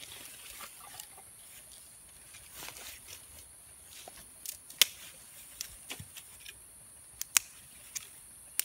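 Dry wood cracking in a series of sharp single snaps as sticks are broken and split by hand, the loudest about five and seven seconds in, over a steady high-pitched drone of insects.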